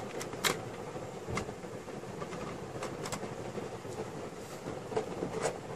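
A few short metal clicks as the LGA775 CPU socket's wire retention lever and load plate are opened by hand, over a steady background noise.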